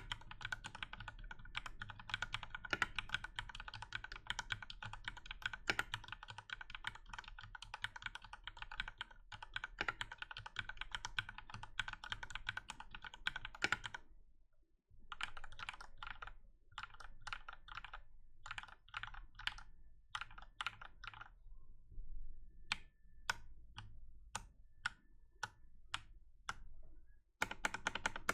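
Mechanical keyboard with Cherry MX Black Hyperglide linear switches being typed on. Fast, continuous typing runs for about the first half, then stops briefly. Short runs of keystrokes follow, then single key presses spaced a second or so apart, and fast typing resumes near the end.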